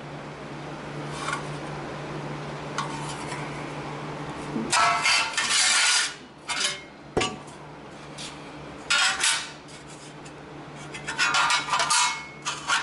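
Loose sheet-metal repair pieces clattering and scraping against each other as they are handled and set into place, in three bursts of metallic rattling with a sharp click between them, over a steady low hum.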